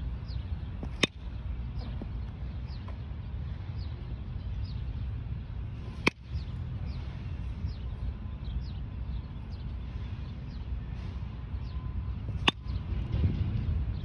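Baseball bat striking pitched balls three times, about a second in, just past midway and near the end, each a sharp crack with a short ring. Small birds chirp throughout in short falling notes over a steady low wind rumble on the microphone.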